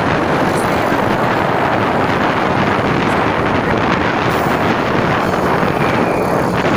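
Strong wind buffeting the microphone on a moving motorcycle, a steady loud rush that covers the engine and road noise.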